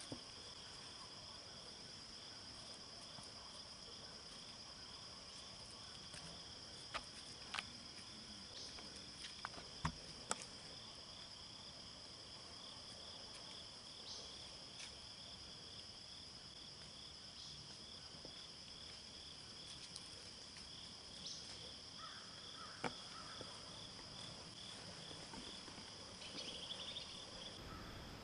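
Steady, high-pitched chorus of insects such as crickets in the woods, with a few faint sharp clicks or snaps scattered through, most of them about a third of the way in.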